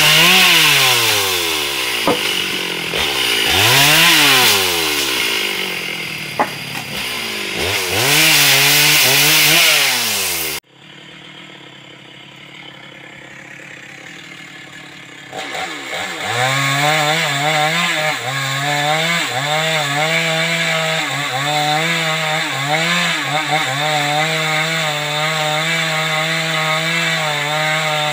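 Two-stroke chainsaw cutting teak, revving up and dropping back about every four seconds. It breaks off suddenly about ten seconds in, and after about five quieter seconds a chainsaw runs again, held at a steady high speed.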